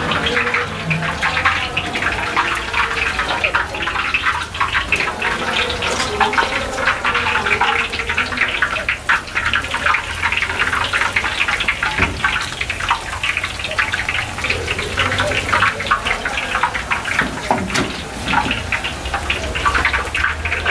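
Cauliflower pieces coated in gobi 65 batter deep-frying in a large kadai of hot oil: a dense, steady sizzle and crackle as fresh handfuls are dropped in.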